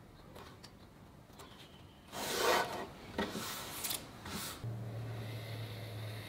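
Hands rubbing and sliding over a dry-assembled wooden frame taped with blue painter's tape: a few scraping strokes, the loudest about two seconds in, with light clicks of the wood and clamp between. A low steady hum comes in near the end.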